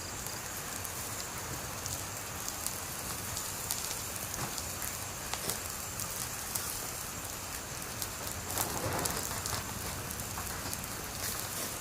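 Wood fire burning with a steady hiss and frequent sharp crackles and pops, swelling into a brief louder rush about nine seconds in.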